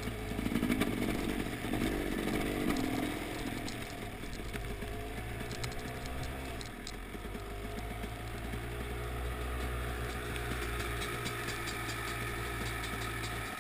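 Dirt bike engine running, its pitch rising and falling in the first few seconds while riding over the ice, then settling into a steadier low running as the bike slows and stops.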